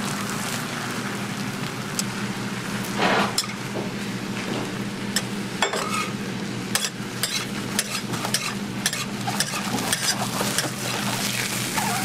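Beaten egg sizzling on a flat steel griddle. A metal spatula scrapes across the griddle about three seconds in and then taps and clicks against it many times in the second half.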